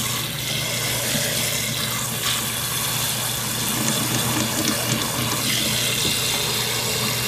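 Kitchen faucet running steadily, its stream of water pouring into a pot of meat and vegetables as the pot fills.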